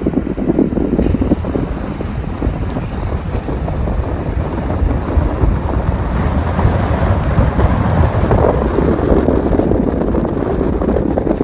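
Wind buffeting the microphone of a moving car, over the rumble of the car's road noise. Steady, getting a little louder in the second half.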